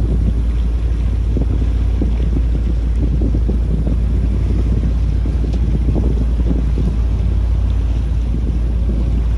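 Wind buffeting the microphone in uneven gusts over a steady low rumble.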